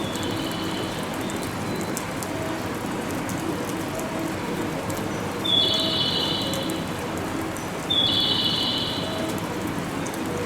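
Railway station platform ambience: a steady rushing noise, with a high electronic tone repeating about every two and a half seconds, loudest twice in the second half.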